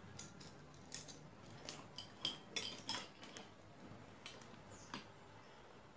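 Irregular sharp clicks and light clinks, about a dozen of them spread across the few seconds, the loudest about one second and two and a half seconds in.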